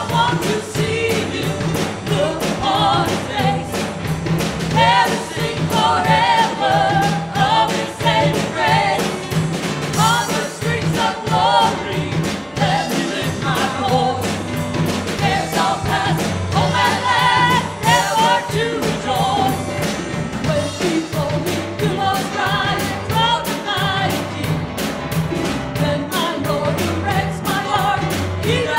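Live worship band playing a gospel song: women's voices singing the melody over keyboard and a drum kit, with cymbals keeping a steady beat.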